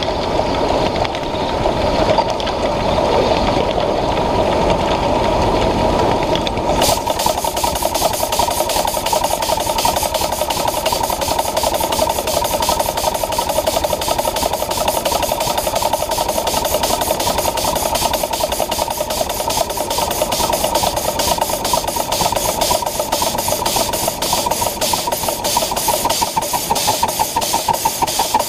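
Live-steam scale Pacific locomotive running, with rumble from its wheels on the track. About seven seconds in, a rapid, even chuffing starts abruptly and keeps on.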